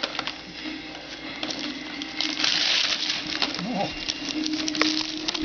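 Wrapping paper being torn and crinkled off a present, with a louder stretch of ripping about two to three seconds in.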